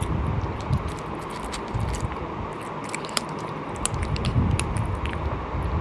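Close-miked chewing and biting of cooked sheep head meat, with uneven low mouth sounds and many small clicks.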